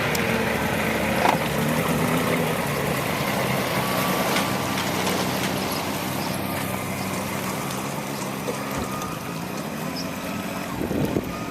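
An engine running steadily, its hum slowly falling in level, with a single sharp click about a second in.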